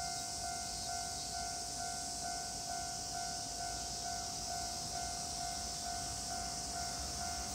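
Railway level-crossing warning bell ringing, a single electronic tone pulsing evenly about twice a second, over a steady high hiss.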